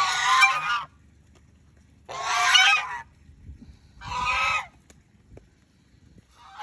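Chinese goose honking three times, each honk under a second long and spaced about two seconds apart: excited honking that demands attention.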